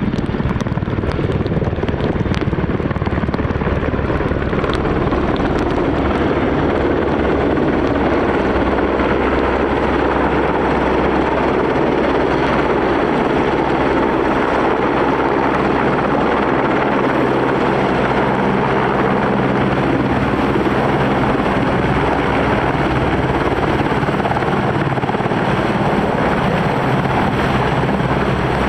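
Westland EH101 Merlin helicopter, its three turbine engines and rotors running close by in a loud, steady drone.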